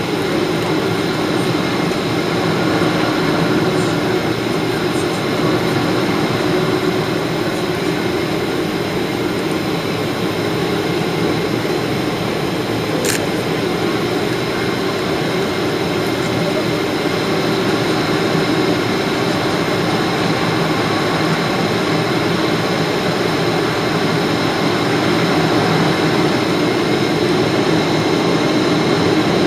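Steady cabin roar of a Boeing 777-300ER climbing, its GE90 jet engines and the rushing air heard from a seat over the wing, with a low steady hum running through it. A single short click sounds about halfway through.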